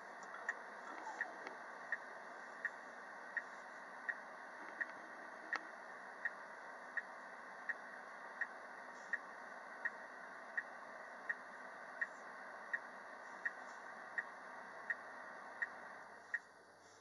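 Steady, even ticking, about three ticks every two seconds, heard inside a car at a railroad crossing over a steady rumble that fades near the end.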